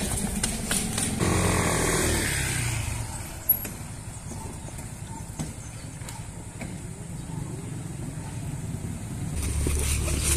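A motor vehicle passing in the street, its sound falling in pitch and fading over the first three seconds, with one sharp knock about three and a half seconds in.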